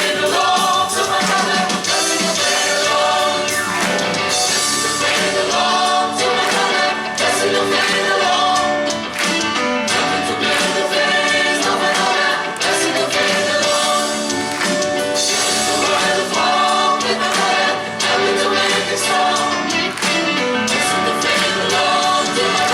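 Choir singing a gospel song with instrumental accompaniment and a steady percussion beat.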